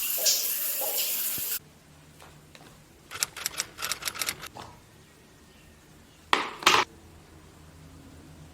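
Kitchen handling sounds: a steady hiss cuts off about a second and a half in, followed by a quick run of small clicks and rustles, then two sharp clatters near the end.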